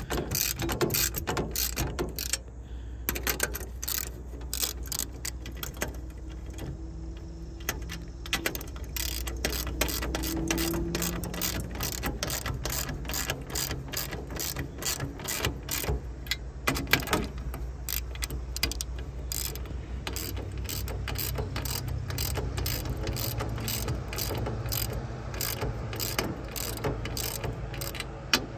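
Ratchet wrench with a 7/16 socket clicking in rapid runs, with short pauses, as nylon locking nuts are cinched down on bolted steel brackets.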